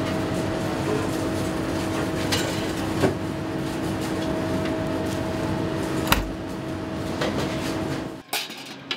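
Steady machine hum with a low two-note drone, with a few sharp metal clinks and scrapes of a spatula against an oven tray in a combi oven, the sharpest about six seconds in. The hum cuts off abruptly near the end.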